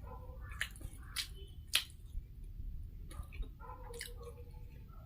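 Wet, smacking eating sounds: about half a dozen short, sharp squishy clicks of lips and mouth on food while someone chews, the loudest a little under two seconds in.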